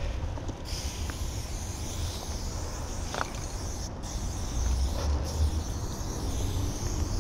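Aerosol spray paint can hissing in long continuous sprays, starting about half a second in, with two brief breaks where the nozzle is released. A steady low rumble runs underneath.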